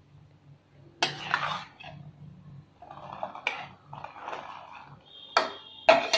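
Metal spatula scraping and knocking against an aluminium pot while boiled pasta is tipped in from a bowl, in irregular bursts. Near the end come two sharp clinks with a brief high ring.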